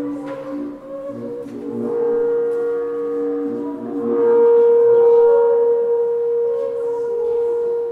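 Ambient drone music: long held tones at a couple of pitches layered together, the higher one swelling to its loudest about halfway through.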